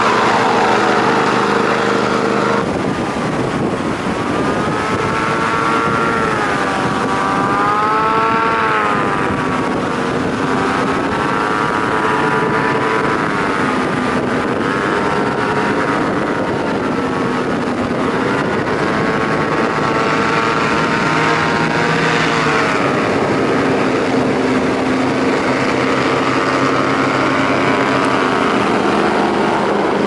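Christy 6146 FC hovercraft's engine and caged propeller running hard, its pitch rising and falling every few seconds over a steady rushing noise.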